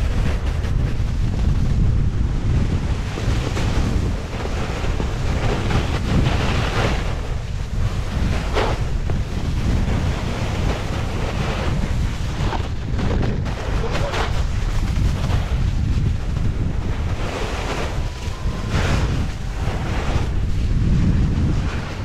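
Wind buffeting the camera's microphone while a Burton Family Tree Pile Driver snowboard slides and carves down packed snow, its edges hissing and scraping across the surface. Several sharper edge scrapes stand out over the steady rush.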